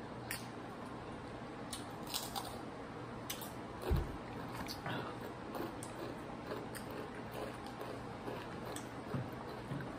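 Scattered crunches of spicy corn snacks (Hot Cheetos puffs and Takis) being bitten and chewed, with a single low thump about four seconds in.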